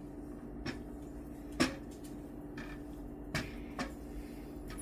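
A cooking utensil knocking and scraping against a frying pan while flour is stirred into crumbled sausage for gravy, four sharp knocks with the loudest about a second and a half in. A steady low hum runs underneath.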